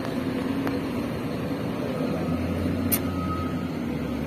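Heavy diesel flatbed truck engine running close by, a steady low drone, with a sharp click about three seconds in.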